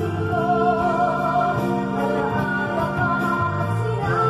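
A recorded song with singing, with an electric bass plucked fingerstyle along to it; the low bass notes change about every second.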